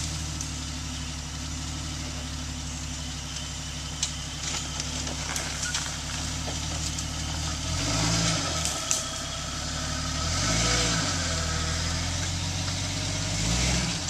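Off-road Jeep Cherokee XJ's engine running at a low idle as it crawls over boulders, revved briefly three times in the second half, each time rising and falling in pitch as it pushes up the rock. A few sharp knocks come through along the way.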